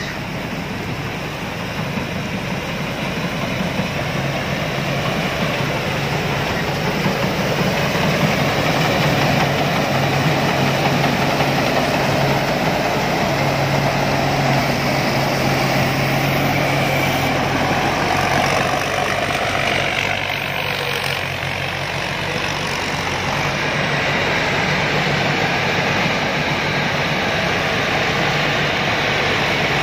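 Rice combine harvester's engine running steadily with a dense mechanical rush, building slightly over the first several seconds.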